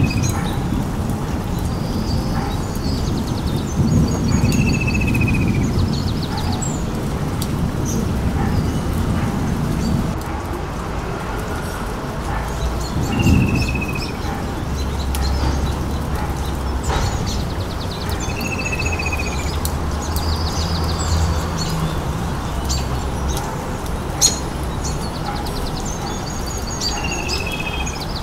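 Birds calling: a short falling chirp comes back every several seconds, with higher trills between. Under them runs a steady rain-like noise with low rumbling, and a few sharp knocks.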